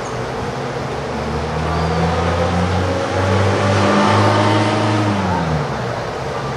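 A motor vehicle driving past: its engine hum builds over a couple of seconds, peaks, then drops in pitch and fades as it moves away.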